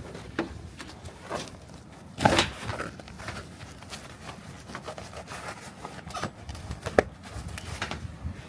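Irregular knocks, clatters and scraping, with a loud knock about two seconds in and a sharp click near the seventh second.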